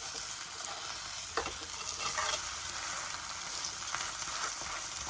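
Egg and vegetable omelette frying in oil in a pan: a steady sizzle, with a few light clicks.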